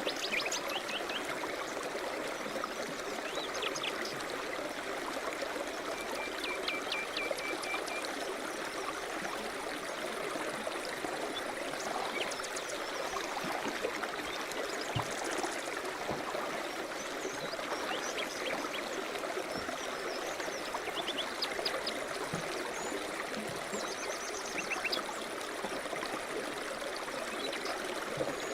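River rapids rushing steadily, with small birds chirping briefly here and there above the water, including a short trill about six seconds in.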